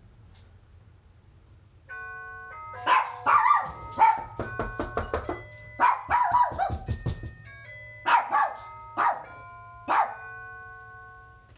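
An electronic musical doorbell chime plays a multi-note tune, starting about two seconds in. About a second later dogs break into excited barking in four loud bursts over the chime.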